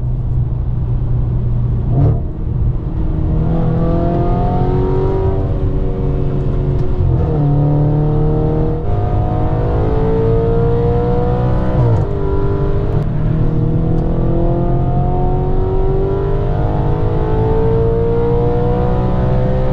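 Audi RS5's V8 engine accelerating, heard from inside the cabin: the engine note climbs steadily, drops sharply at an upshift about seven seconds in, climbs again, drops at a second upshift about twelve seconds in, then climbs to the end.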